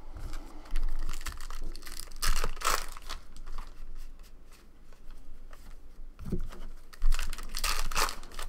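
A foil trading-card pack wrapper being torn open and crinkled, with cards rustling and sliding between hands. The tearing and crinkling come in two louder bursts, about two seconds in and again near the end.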